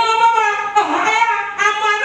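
A woman's raised voice through a handheld microphone, in three drawn-out, high-pitched phrases with held, sung-like syllables.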